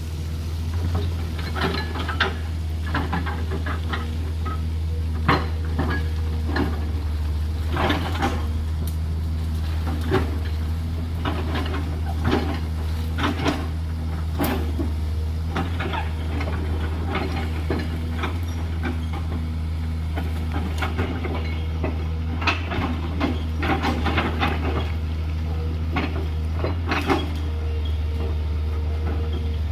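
JCB 210LC excavator's diesel engine running steadily under load, with frequent irregular clinks and knocks of gravel and stones as the bucket cuts into a gravelly slope.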